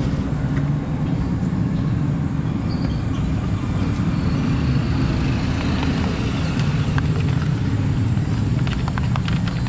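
Steady low rumble of road traffic, with a few light clicks near the end as a steel spoon stirs batter in a plastic bowl.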